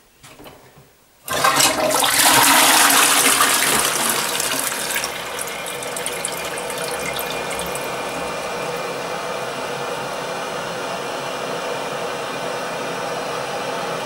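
Push-button toilet with a newly fitted flush valve, flushed as a test. A sudden rush of water starts about a second in and is loudest for the first few seconds, then settles into a steady run of water.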